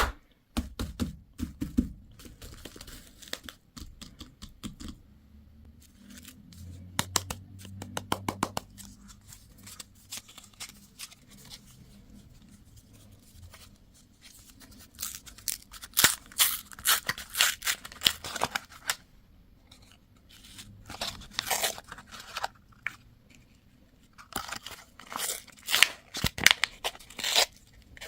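Candy and surprise-toy packaging being torn open and handled: crisp crinkling and tearing of plastic wrappers in bursts, with quieter stretches between.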